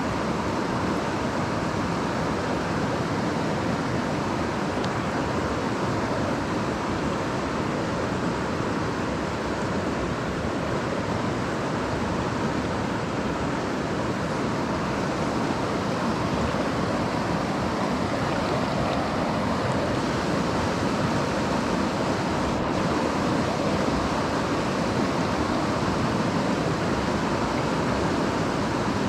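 Steady rush of a mountain stream's flowing water, an even wash of noise that holds constant throughout.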